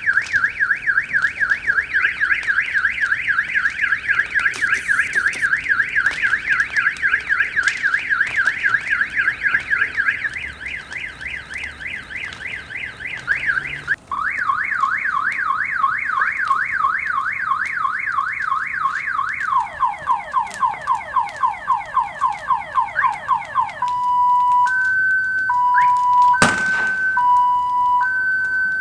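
Car alarm siren cycling through its tone patterns: a fast high warble, a steadier stretch, a slower warble from about halfway, falling sweeps, then two alternating pitches beeping. A single sharp bang cuts through about three-quarters of the way in.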